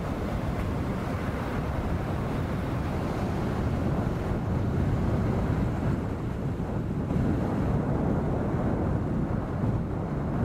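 Strong, fast wind blowing: a steady low rush that swells and eases in gusts every few seconds.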